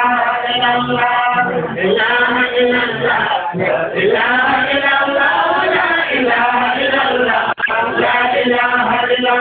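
Men's voices chanting a continuous melodic chant together. The chant drops out for an instant near the end.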